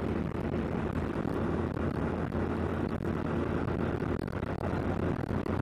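Car cabin noise while driving at highway speed: a steady engine and tyre drone with a low hum.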